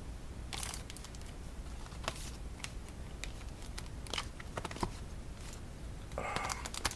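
Boxed decks of playing cards handled and set down, a few light taps and clicks and soft sliding of cardboard tuck boxes as they are stacked.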